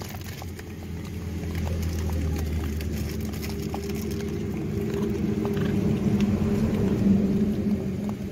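A low, steady engine hum that grows somewhat louder after the first second, with faint scattered clicks over it.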